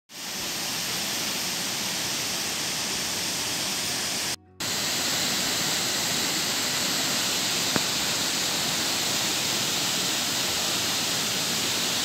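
Dunhinda Falls, a 64-metre waterfall plunging into a pool, making a steady rush of falling water. The sound cuts out for a moment a little before halfway, and there is one short click about two-thirds of the way through.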